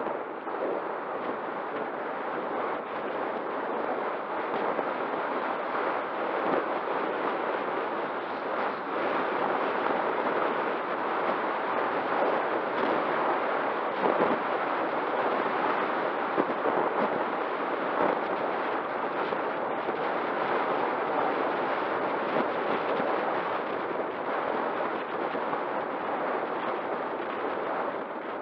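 Steady wind buffeting the microphone of a bicycle-mounted camera on a fast road descent, with a faint steady tone underneath.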